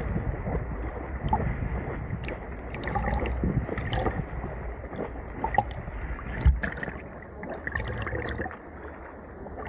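Sea water splashing and sloshing around a camera held at the surface while swimmers in fins kick and stroke, water washing over the microphone in irregular gushes. A single sharp knock about six and a half seconds in.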